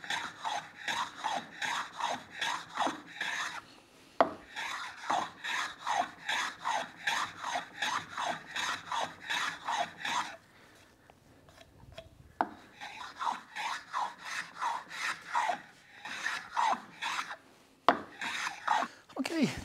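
Metal hand plane cutting a small chamfer along the edge of a maple box lid: short, quick shaving strokes about twice a second, in runs broken by brief pauses. One sharp knock near the end.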